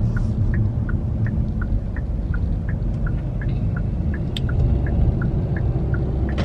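Car turn-signal indicator ticking, an alternating higher and lower tick about three times a second, over the steady low rumble inside the car's cabin.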